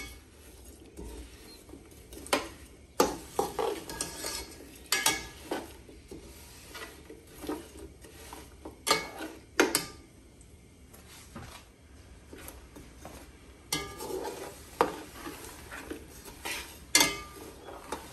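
A slotted metal spoon stirring chunks of jaggery in milk in an aluminium pot, scraping and clinking against the pot's sides and bottom at irregular intervals.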